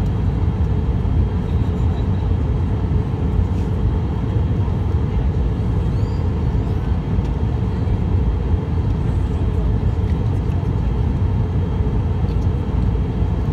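Steady low roar inside the cabin of an Airbus A319 in flight, jet engine and airflow noise heard from a window seat.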